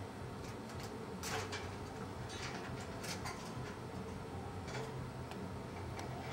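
Woodpecker pecking at wood in single sharp knocks at an uneven pace, roughly one or two a second, over a steady low background hum.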